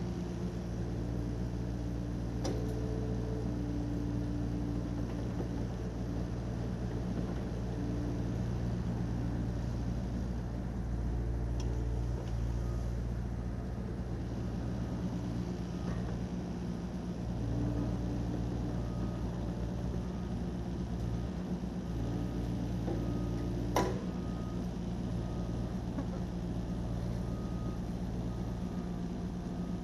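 Yanmar SV40 mini excavator's diesel engine running steadily under work, with a whining tone that comes and goes as the hydraulics load up. A sharp knock sounds a couple of seconds in and a louder one about 24 seconds in.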